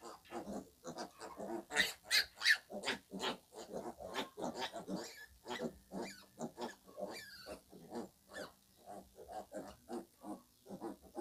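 Young piglets grunting in quick succession, about three or four short calls a second, with a few louder, higher-pitched squeals about two seconds in.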